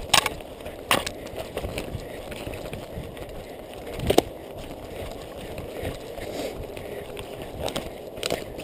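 Running footsteps and rustling through forest undergrowth, picked up close on a chest-mounted action camera, with sharp knocks just after the start, about a second in and about four seconds in.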